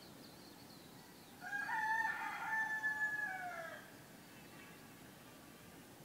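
A rooster crowing once, starting about a second and a half in: a drawn-out call of about two seconds that holds its pitch and drops away at the end.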